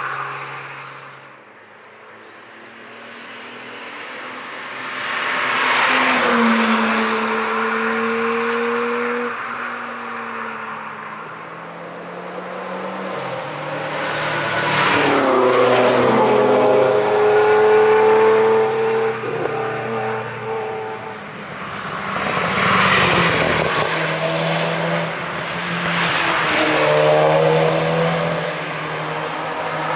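Several cars driving past one after another on a race track, each engine note swelling as it nears and fading as it goes. Some engines rev up, their pitch rising as they accelerate out of the corner.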